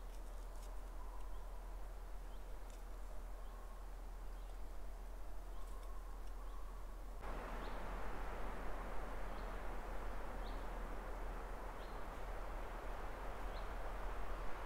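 Forest ambience: a steady outdoor hiss with small birds chirping now and then, and a few faint clicks of a knife slicing garlic over a pot. The background hiss jumps louder about halfway through.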